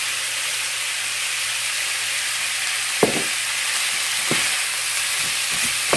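Ground beef sizzling steadily as it browns in a skillet, with two sharp knocks of a wooden spoon against the pan about three and four seconds in as it is stirred.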